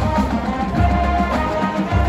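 Marching band playing, with brass holding sustained notes over deep low bass.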